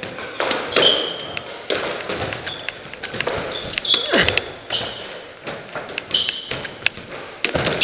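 Squash rally: the ball knocking sharply off the walls and rackets, mixed with rubber-soled shoes squeaking in short chirps on the wooden court floor.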